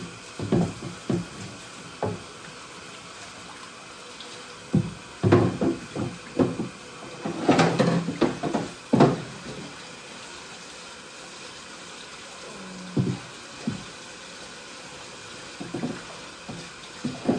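Tap water running steadily into a sink while fish are cleaned, with irregular knocks and clatter in bursts. The busiest stretch is about seven to nine seconds in.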